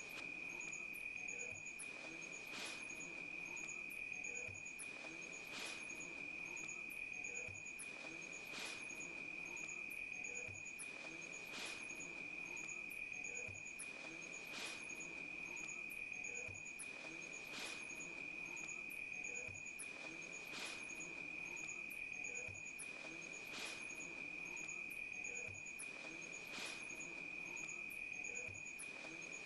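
Faint insects chirping: a steady high trill throughout, with short chirps repeating about twice a second and a sharper click about every second and a half.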